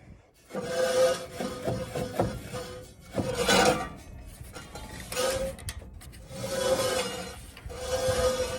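Metal scraping and rubbing on the disc harrow's steel parts in about five strokes of a second or two each, with a squealing ring to each stroke.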